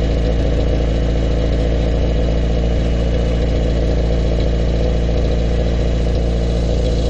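LADA 2107's four-cylinder engine idling steadily, heard at the tailpipe of an aftermarket sport muffler on a 60 mm exhaust system: an even, deep exhaust note with no revs.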